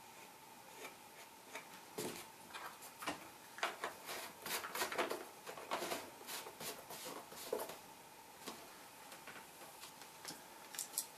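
Faint scattered clicks and light knocks of hands handling objects on a table top, most of them in the middle few seconds and a few more near the end. A faint steady high hum runs underneath.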